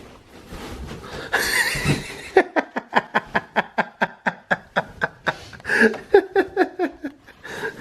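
A person laughing hard in a long run of short, rhythmic bursts, about four a second, that become more voiced toward the end.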